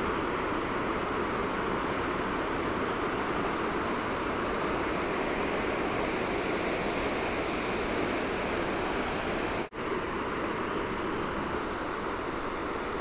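Steady rushing of water over a river waterfall, unbroken except for a momentary dropout about ten seconds in.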